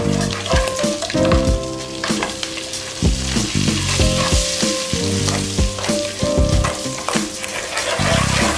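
Melted butter foaming and sizzling in a nonstick pot while a spatula stirs through it; the sizzle grows louder from about three seconds in. Background music with a steady beat plays underneath.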